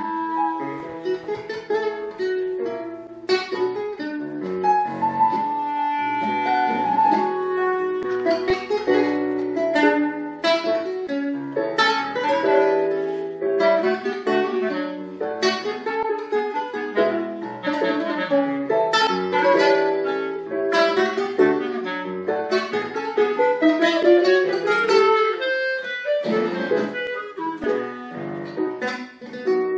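Live instrumental trio of classical guitar, clarinet and keyboard: plucked guitar notes under a sustained clarinet melody line, with keyboard chords.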